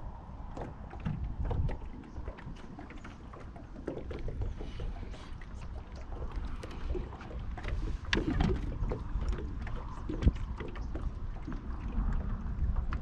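Ambient sound aboard a small aluminium fishing boat: a low rumble of wind and water, with scattered light clicks and knocks.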